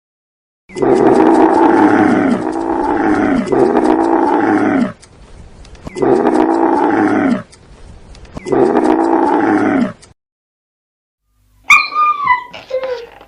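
An animal calling loudly: a run of long, wavering calls in three groups, then after a short pause a few short falling cries near the end.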